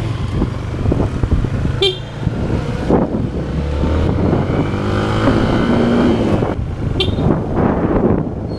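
Motorcycle engine running under way and revving up through the gears, with two short horn beeps, one about two seconds in and one near seven seconds.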